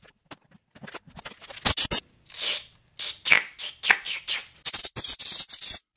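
A few sharp clicks, then a series of short squeaky scraping strokes and a quick run of rapid scratching near the end: hand scraping and cleaning out the drilled hole.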